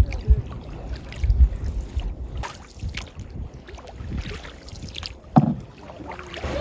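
Canoe being paddled: scattered paddle splashes and knocks, with a sharp knock about five seconds in, over wind buffeting the microphone.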